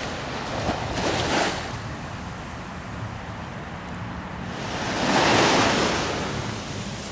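Surf breaking on a sandy beach: a steady rush of waves, swelling briefly about a second in and again, louder, about five seconds in as a wave washes up. Wind buffets the microphone.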